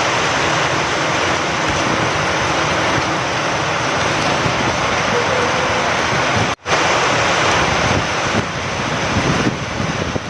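Steady, heavy rain falling, with wind, making an even hiss. It cuts out for an instant about two-thirds of the way through, then resumes.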